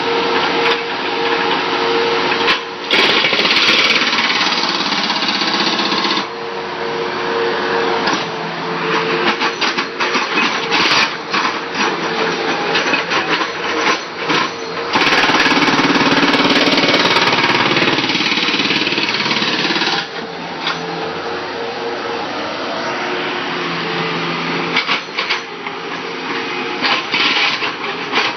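Jackhammer breaking up concrete: rapid, continuous hammering in long stretches, with a steady hum underneath.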